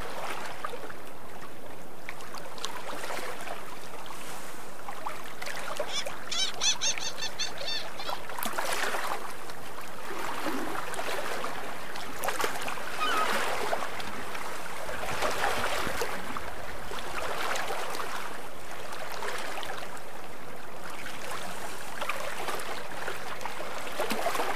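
Water washing along a sailboat's hull under way, a steady rushing that swells and eases every few seconds, with wind. A brief run of high chirps about six seconds in and a few short high calls around the middle.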